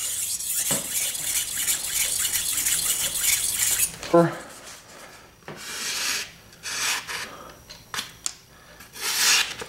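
Steel knife blade stroked over a whetstone: steady scraping for about four seconds. Then come several separate short swishes as the blade slices through a sheet of paper to test its sharpness.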